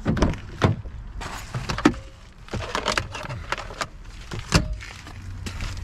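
A car door opened and handling noise as sunglasses are taken out of the car: a string of sharp clicks and knocks over a steady low rumble.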